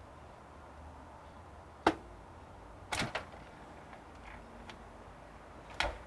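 Sharp clicks and knocks of hard computer parts being handled and worked loose: a loud one about two seconds in, a quick double knock a second later, and another near the end.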